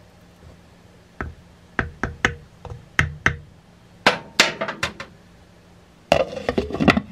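Kitchen utensils and dishes clinking and knocking: a string of separate sharp clinks, then a quicker clatter near the end.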